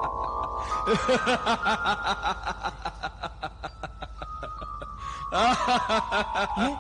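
Eerie fantasy background music: a shimmering tone stepping upward then back down over a rapid even pulse, with two runs of echoing, eerie laughter, one about a second in and one near the end.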